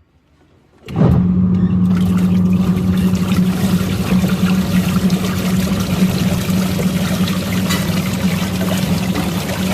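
Washing machine running with green-dyed water: a steady motor hum under water churning and splashing, starting abruptly about a second in.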